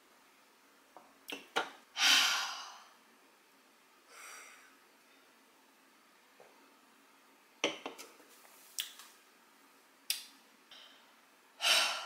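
A woman drinking beer from a can, with small gulping clicks as she swallows. About two seconds in she lets out a loud, breathy 'ahh' of satisfaction after a swallow, followed by a softer breath. Near the end comes another loud 'ahh'.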